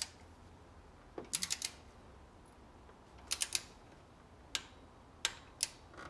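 Click-type torque wrench ratcheting as a thermostat housing bolt on a 5.7 Hemi is tightened toward 16.5 ft-lb: two short runs of quick pawl clicks, about a second and a half and three and a half seconds in, then a few single clicks.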